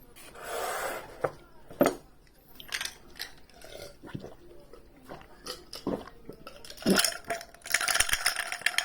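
Dishes and cutlery clinking and knocking in scattered single strikes, with a short swell of rustling noise about half a second in and a dense run of small clicks near the end.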